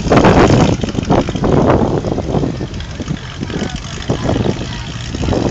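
Vintage American cars driving slowly past close by, with their engines rumbling low and tyres on the road. The sound is loudest over about the first two seconds as one car goes by, then settles to a steadier rumble.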